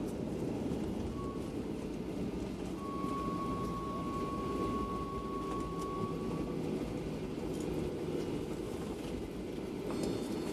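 Cabin noise inside a Boeing 737-800 after touchdown: a steady low rumble with a thin, steady high whine that comes in about three seconds in and stops a few seconds later.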